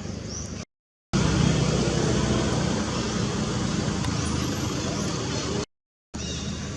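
Steady motor-vehicle and road noise. It is broken twice by brief dead silences where the footage is cut, and the middle stretch is the loudest.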